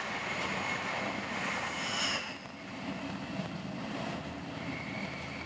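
Passenger train running, heard from inside the coach: a steady rumble and rush, with thin high squeals coming and going, the loudest about two seconds in.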